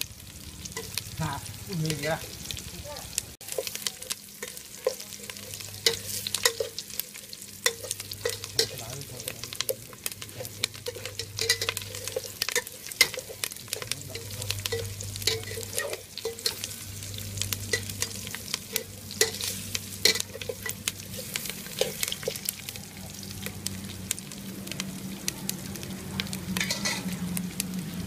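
Aromatics (lemongrass, kaffir lime leaves, chillies) sizzling in hot oil in an aluminium pot while a metal spatula stirs them, with frequent clicks and scrapes of the spatula against the pot.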